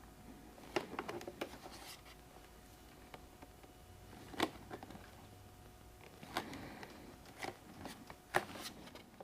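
Faint handling sounds: light taps, clicks and rubbing as fingers press an adhesive-backed Kuryakyn Omni LED light strip onto a motorcycle saddlebag panel, with a few sharper clicks scattered through.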